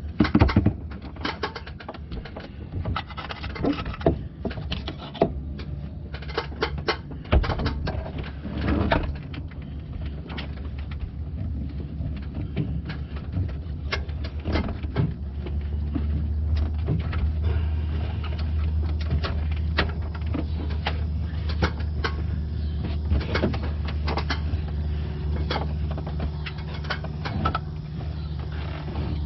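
Scattered clicks, knocks and clatter of hands and tools working around a truck's engine-bay pulleys and new drive belt, with the engine off. Under them runs a steady low hum that gets louder about halfway through.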